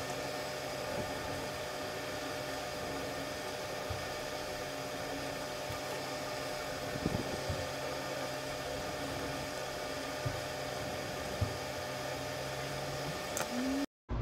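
Steady hiss and low hum of background noise, like a small fan running, with a few faint clicks from handling small parts. The sound cuts out suddenly just before the end.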